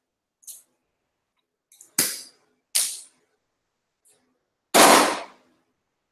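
Sharp bangs: a faint click, then two sharp bangs less than a second apart, then about two seconds later a louder, longer bang with a low rumble.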